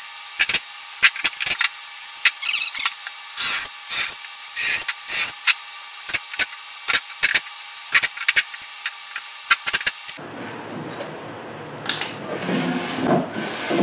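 Cordless drill run in short bursts, pre-drilling and driving screws into a wooden box, among many sharp clicks and knocks of handling. About ten seconds in, the knocks give way to duller, lower handling sounds.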